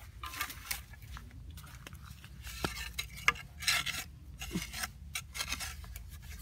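Short-handled hoe chopping and scraping into dry dirt at the mouth of a burrow: a run of irregular chops and scrapes, with one sharper strike about three seconds in.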